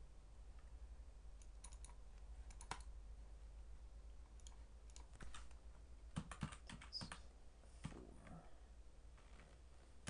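Quiet computer mouse clicks, then a quick run of keyboard keystrokes about six seconds in, as a folder name is typed.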